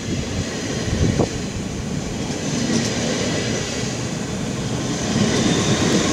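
NS DDZ double-deck electric train pulling out of the station and running past along the platform, with a steady rumble of wheels on rails that grows louder as it gathers speed. There is a single short knock about a second in.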